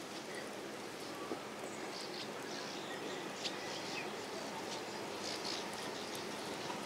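Birds chirping and insects calling over a steady outdoor hiss, with a couple of faint clicks, the sharpest about three and a half seconds in.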